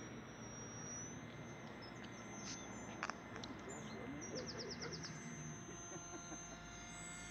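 Faint birdsong, including a short rapid trill about halfway through, over a faint steady high whine from the distant RC twin jet's engines.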